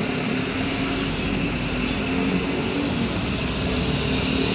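Steady engine hum and road noise of a moving car, heard from inside the cabin.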